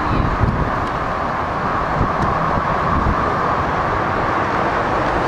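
Metro-North M2 electric multiple-unit train approaching along the track, a steady rumble and hum with no sudden changes.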